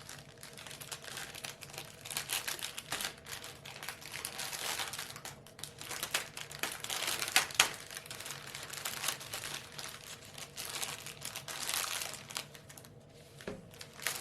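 Packaging crinkling and rustling as paint-by-number kit contents are handled and unwrapped, with irregular sharp crackles and one louder snap about halfway through.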